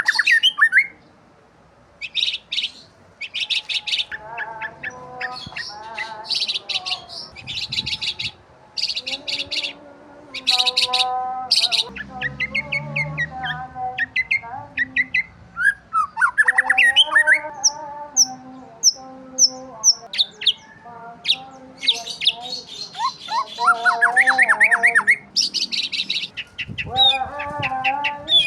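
Birds chirping and calling, many short overlapping chirps and rapid strings of high notes mixed with lower, pitch-bending calls.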